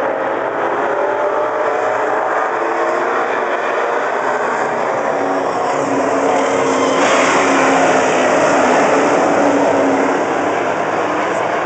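Several late-model stock cars' V8 engines running flat out together as the pack laps the oval. The sound grows louder about seven seconds in as cars pass close by, then eases slightly near the end.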